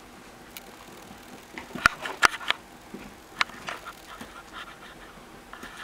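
A few sharp knocks and scuffling clicks from a kitten at play with a feather wand toy, the loudest cluster a little under two seconds in and one more about three and a half seconds in.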